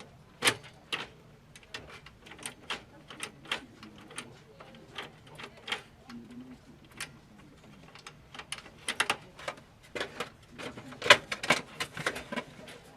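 A series of irregular sharp clicks and taps, at uneven intervals, coming thicker and louder in the last few seconds.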